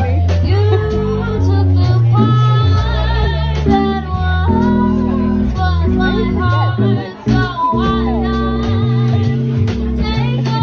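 Live band playing: a woman singing the melody with vibrato over a keyboard and a drum kit, with low keyboard notes stepping along and regular drum and cymbal hits.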